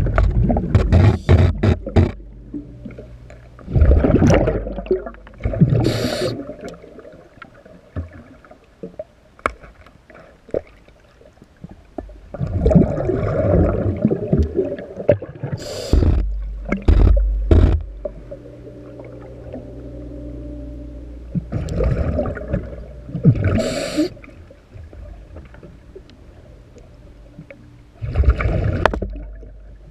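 Scuba diver breathing through a regulator underwater: loud bursts of exhaled bubbles and breath hiss every few seconds, with a faint steady hum in the quieter stretches between breaths.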